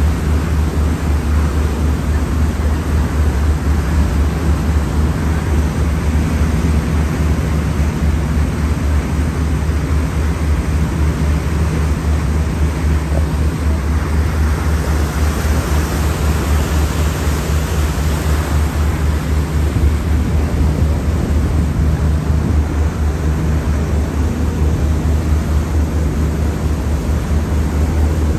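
A boat's engine running with a steady low, throbbing drone, under the rush of wind and churning water from the wake. The hiss swells briefly about halfway through.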